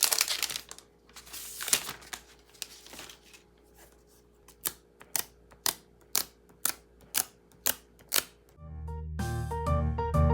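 Rustling and handling noises for the first few seconds, then a run of sharp, evenly spaced clicks about two a second. Background music with piano comes in near the end.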